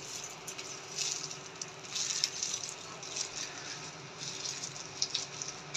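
Thin yogurt poured in a stream from a plastic bag into a glass bowl of chopped vegetables: soft pouring and splattering with brief rustles, over a faint steady hum.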